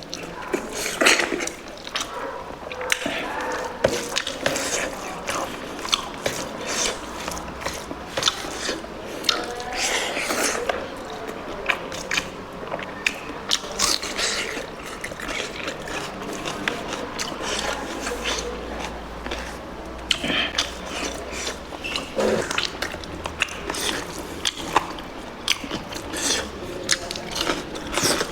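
Close-miked mukbang eating: a person chewing and biting mouthfuls of pork curry, with many irregular wet clicks and smacks.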